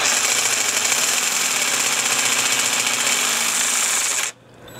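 Cordless jigsaw running steadily, its blade cutting along the edge of a tile. It stops abruptly about four seconds in and starts up again just before the end.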